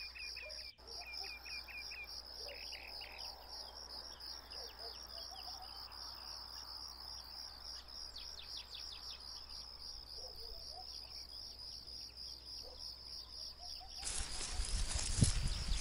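Crickets or other insects chirping in a steady, high, pulsing trill, with scattered short bird chirps. About 14 s in the sound cuts abruptly to a louder, even rush of outdoor noise with heavy low thumps.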